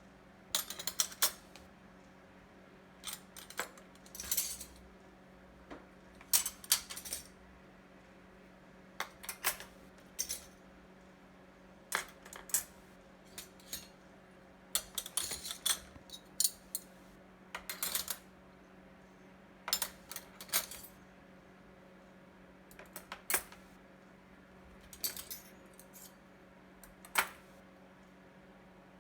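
Metal silverware clinking as forks, knives and spoons are sorted one at a time into a cutlery tray: short clusters of sharp clinks every second or two.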